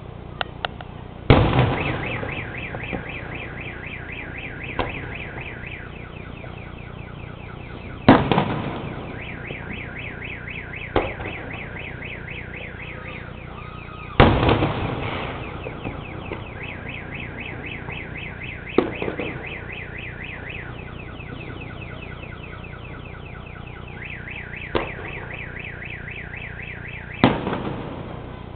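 Fireworks shells bursting: four heavy booms with echoing tails and a few lighter bangs between them. Starting just after the first boom, a car alarm sounds a rapid, repeating electronic warble that switches between tone patterns every few seconds.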